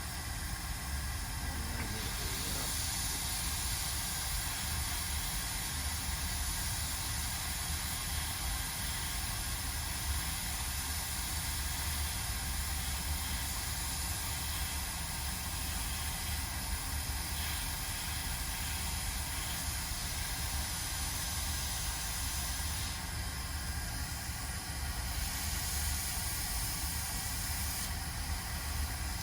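Hot air rework station blowing a steady hiss of air over the logic board, with a low hum underneath; the hiss grows brighter about two seconds in and changes briefly a few times near the end.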